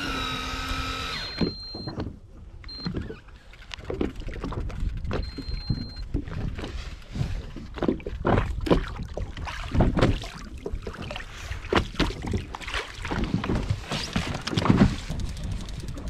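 A few short, high electronic beeps in the first seconds, then irregular slaps and knocks of water against a small boat's hull, two or three a second.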